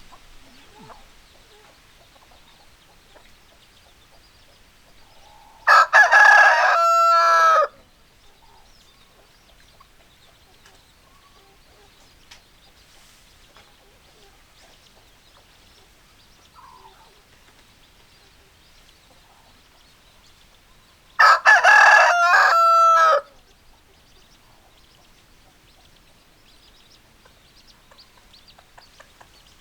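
Rooster crowing twice, about fifteen seconds apart. Each crow lasts about two seconds and ends on a held note. Faint scattered sounds lie between the crows.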